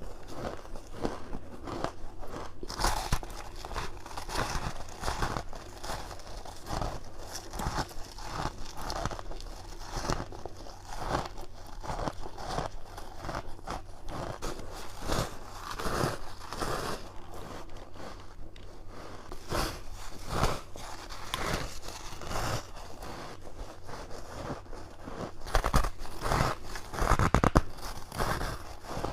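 Frozen ice or freezer frost being bitten close to the microphone: a steady run of short, crisp crunching bites, with a louder cluster of bites near the end.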